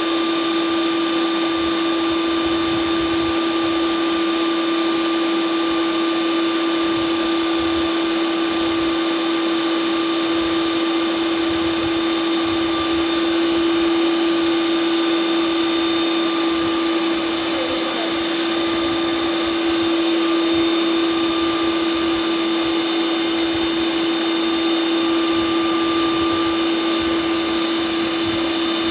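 Ninja Creami ice cream maker running its Sorbet program, its motor spinning the paddle through a tub of frozen soft drink with a loud, steady, even-pitched hum.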